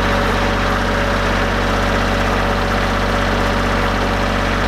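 A motor running steadily at an even pitch.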